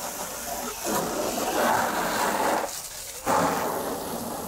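Water spray rinsing loose mud and dirt off a truck's undercarriage: a steady spraying hiss that stops for about half a second near the three-second mark, then starts again.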